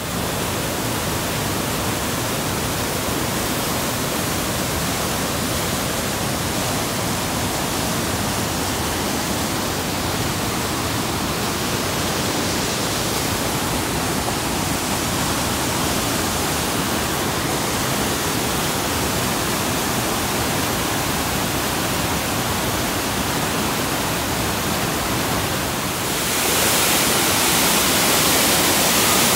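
Steady rushing roar of the Stuibenfall, a 159-metre waterfall, falling water spread evenly from deep rumble to hiss. Near the end it grows louder and hissier.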